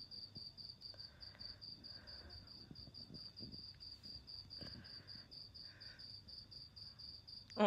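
A cricket chirping steadily, a high-pitched pulse about four to five times a second, fairly faint.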